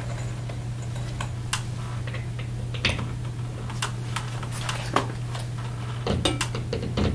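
Scattered light clicks and taps as a metal scroll drapery bracket and a cordless drill are handled and set against a wall, over a steady low hum. The clicks come closer together near the end, just before drilling.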